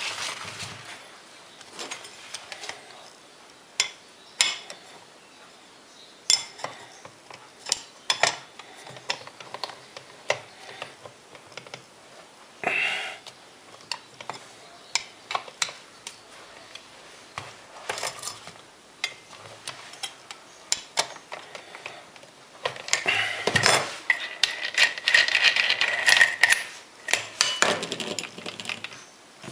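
Metal tool parts being handled: scattered clicks, clinks and knocks. About three quarters of the way through there is a louder rasping noise lasting a few seconds, with a steady high whine in it.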